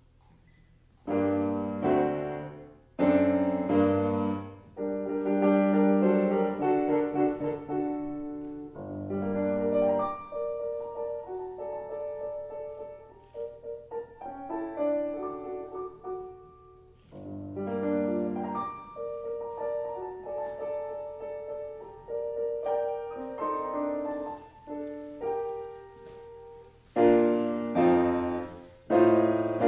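Solo grand piano playing. It enters suddenly about a second in with loud chords, then continues with a steady flow of notes, and has loud chords again near the end.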